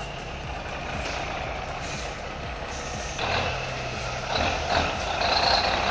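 Heavy diesel logging truck's engine running, becoming louder about three seconds in.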